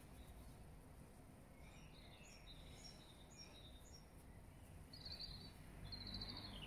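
Faint bird chirps: a run of short high notes from about two seconds in, then two quick trills near the end, over low steady outdoor background noise.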